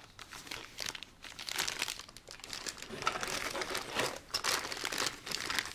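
Clear plastic parts bag crinkling irregularly as it is handled, fuller after the first second or so.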